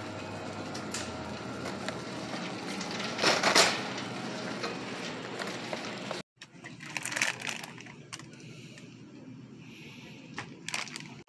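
Wire shopping cart rolling over a hard store floor, its wheels and basket rattling, with one louder clatter about three and a half seconds in. A little past six seconds the sound breaks off briefly and comes back quieter, with scattered short rattles.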